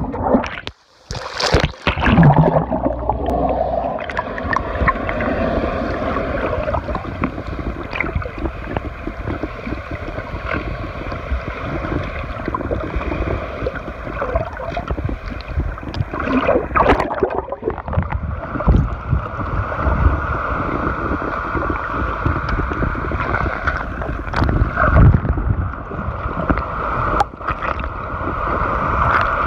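Water noise picked up by a phone held underwater: muffled sloshing and gurgling with a steady hum underneath. The sound drops out briefly about a second in as the phone goes under, and there are louder surges of water movement now and then.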